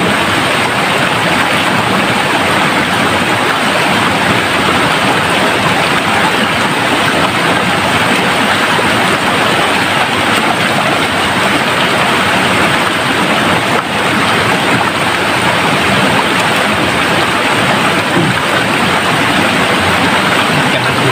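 Rocky stream rushing over boulders: a steady, loud rush of water.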